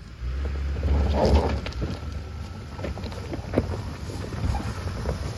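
Hyundai Santa Cruz pickup crawling up a rocky dirt trail: a low rumble of engine and wind on the microphone that jumps up a moment in, with the tyres crunching and knocking over loose rocks and gravel.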